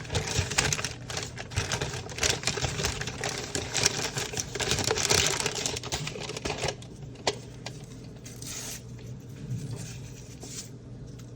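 Quick, irregular clicking and tapping, dense for about the first seven seconds and then sparse, over a steady low hum.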